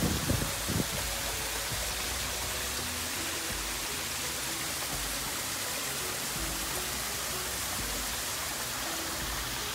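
Steady rushing and splashing of a small garden waterfall falling into a pond, with faint soft music notes drifting over it.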